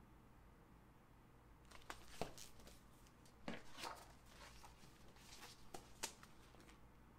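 Pages of a large picture book being leafed through: paper rustling with several sharp snaps and flaps, starting about two seconds in and loudest around the middle.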